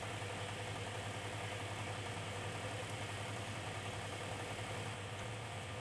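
Steady low hum with a faint hiss behind it, even throughout and with no distinct events: workshop background noise.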